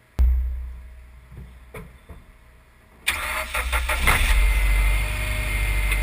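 A heavy thump near the start, then about three seconds in a Mitsubishi Lancer Evolution X's turbocharged 2.0-litre four-cylinder engine is cranked by its starter, catches within about a second and settles into a steady idle.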